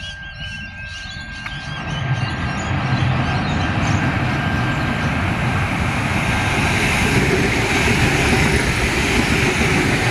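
Adelaide Metro 4000 class electric multiple unit approaching and running in alongside the platform. The rumble of its wheels on the rails swells about two seconds in, then holds steady and loud as the cars pass.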